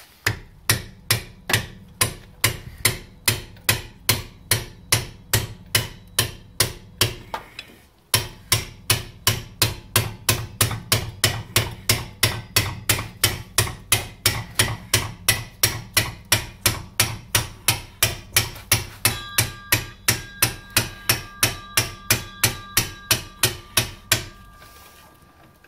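Hammer blows on a long steel punch driving out the inner metal collar of a Chevy Aveo's rear trailing-arm (axle) bushing, at a steady rate of about three a second, with one brief pause about eight seconds in. Over the last few seconds a steady metallic ring sounds under the blows.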